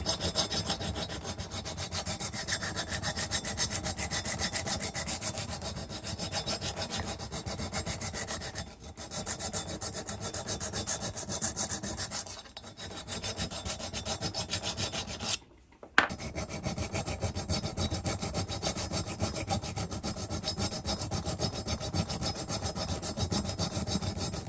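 Metal hand file rasping rapidly up and down in the exhaust port of a two-stroke engine cylinder, smoothing the rotary-cut marks left by grinding flat before sandpaper. The strokes run fast and even, with a couple of short dips and one brief stop about two thirds through.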